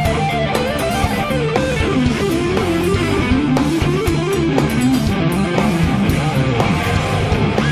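Electric guitar playing a quick, winding lead melody over an instrumental rock backing with bass.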